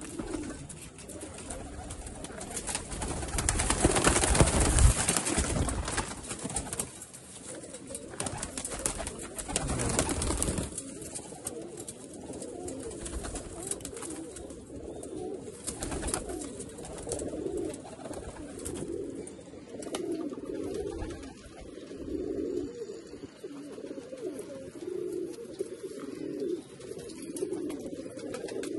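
Malwai domestic pigeons cooing, a low coo repeated about once a second through the second half. Over the first ten seconds there are louder bursts of rustling noise.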